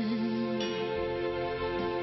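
Slow, soft worship music with held chords.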